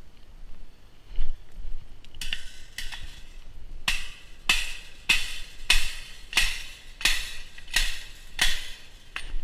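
Hammer blows, about ten strikes at a steady pace of roughly one every two-thirds of a second, each with a brief ringing note, starting about two seconds in: a fence being mended by hand.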